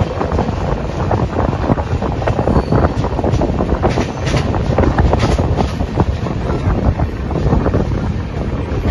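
Wind buffeting the microphone held outside a moving LHB-coach passenger train, over the steady rumble and irregular clatter of the train running on the rails.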